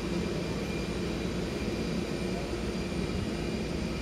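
Airport apron noise: jet aircraft running steadily, a constant hum with a thin high whine above it.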